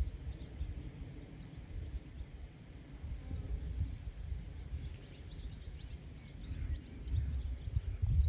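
Wind rumbling unevenly on the microphone, with faint bird chirps now and then, most of them around the middle.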